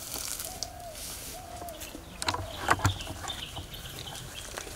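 A bird calling: two short notes that each rise and fall in pitch, in the first two seconds. About halfway through come a few sharp clicks and rustles, the loudest sounds here.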